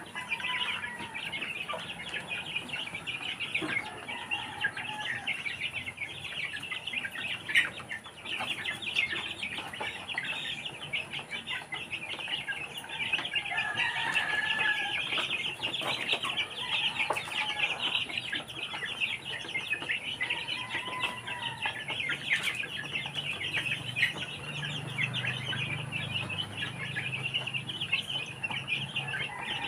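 A flock of Barred Plymouth Rock chicks peeping constantly around their feed, with adult hens clucking every few seconds.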